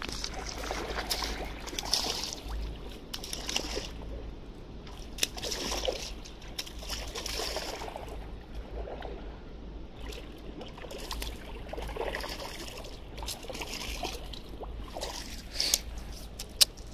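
Water sloshing and splashing at the surface as a hooked trout is played in close to the bank, with scattered light clicks and one sharp click near the end.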